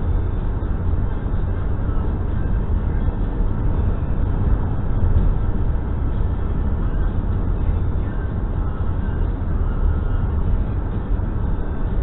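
Steady road and engine noise of a car cruising along a country road, heard from inside the cabin: a continuous low rumble with no breaks or changes.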